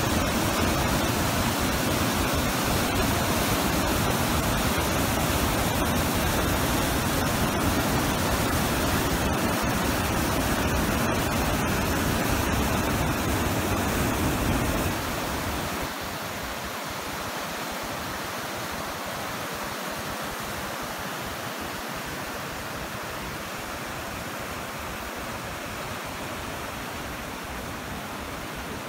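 Petrohué waterfalls: white water rushing over volcanic rock in a steady loud rush. About halfway through it changes to a quieter, thinner rush of the fast river.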